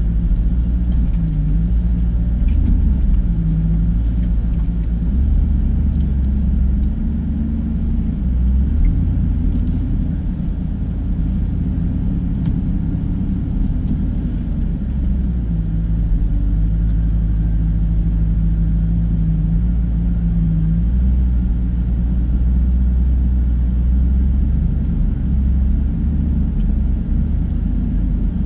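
Ram Power Wagon's V8 engine running at low revs while the truck climbs a steep rocky hill: a deep, steady engine note whose pitch shifts slightly with the throttle, stepping at about halfway through and again near two-thirds.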